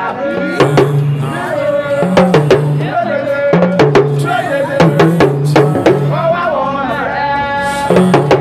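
Music with a drum beat, a repeating two-note bass line and a sliding lead melody.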